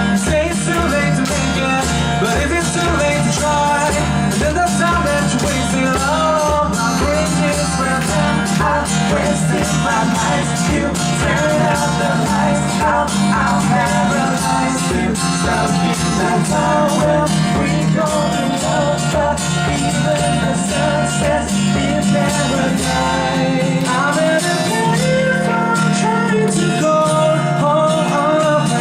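Band music with guitar and a steady drum beat; the drums drop out about three-quarters of the way through.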